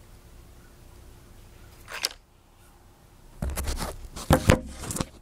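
Handheld phone camera being picked up and moved: a brief swish about two seconds in, then a second and a half of loud rubbing and handling noise against the microphone, with a few sharp knocks near the end.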